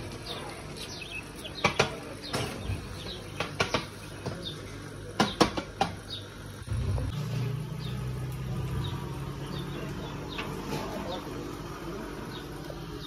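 A run of sharp clicks and knocks over the first six seconds. Then, from about seven seconds in, a steady low hum with faint chirps.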